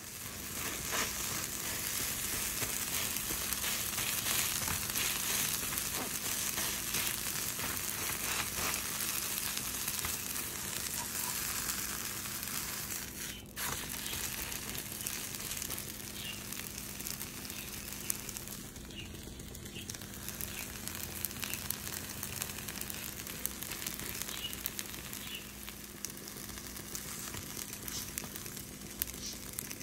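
Egg mixture sizzling and crackling in a nonstick frying pan cooked without oil, over a steady low hum.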